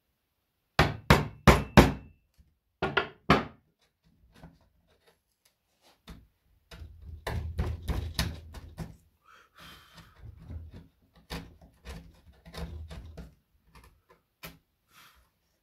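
Mallet striking a wood chisel cut into a board: four quick sharp knocks about a second in, then two more. After a pause the chisel is worked by hand, paring and scraping wood out of the recess with irregular soft knocks.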